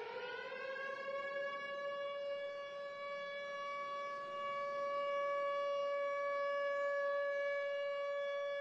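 Air-raid siren winding up in pitch over the first second, then holding one steady tone that grows somewhat louder about halfway through. It sounds an air-raid alert.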